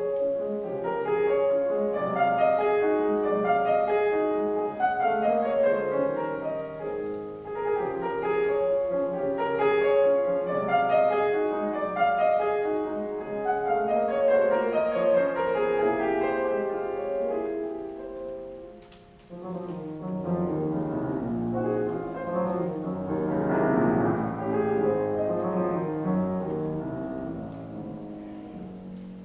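Steinway grand piano played solo: busy runs of notes, a brief drop in loudness a little past halfway, then a swelling passage that fades toward the end.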